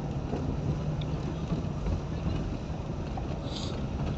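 Steady low rumble of a van's engine and cabin noise, heard from inside the passenger compartment.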